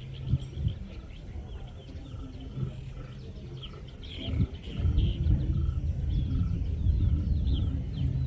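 Many birds chirping in short repeated calls over a low rumble, which grows louder about five seconds in. A faint pulsing call repeats about twice a second underneath.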